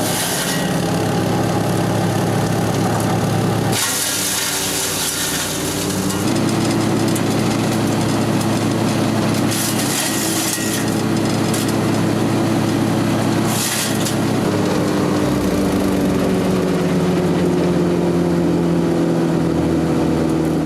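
Hyundai HYCH7070E-2 wood chipper's 208cc four-stroke petrol engine running steadily while branches are fed through it. Several loud hissing, crunching surges of wood being chipped come at the start, about four seconds in (lasting a couple of seconds, with the engine labouring under the load), around ten seconds in and again around fourteen seconds in.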